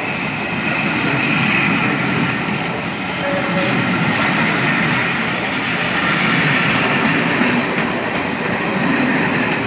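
British Railways Mark 1 passenger coaches passing close by, a steady loud rumble of steel wheels running on the rails.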